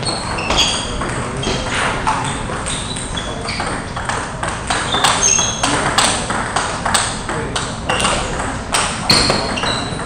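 Table tennis balls being hit in rallies on several tables at once: a steady, irregular run of sharp clicks and pings from ball on bat and ball on table.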